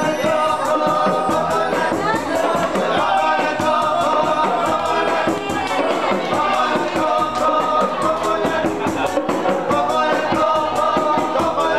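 Live band music with several voices singing together over a steady percussive beat.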